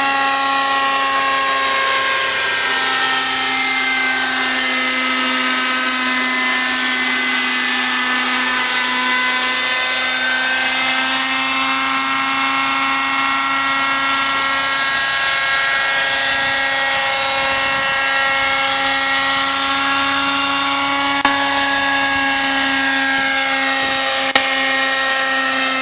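Radio-controlled scale MD500 helicopter in flight: its motor and rotor give a steady high whine over a strong hum. The whine sinks in pitch over the first few seconds and climbs again later, and two short clicks come near the end.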